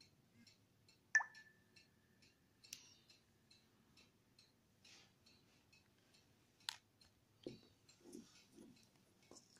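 Quiet handling of a smartphone and a small USB cable and plug: a sharp click about a second in, followed by a short ringing tone, then another sharp click and a few soft knocks later on. Under it all runs a faint, regular ticking at about two to three ticks a second.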